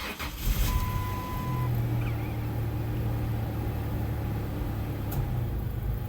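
A 2001 Mazda B3000's Ford 3.0-litre V6 starts and settles into a steady idle. A single beep lasting about a second sounds just after it catches.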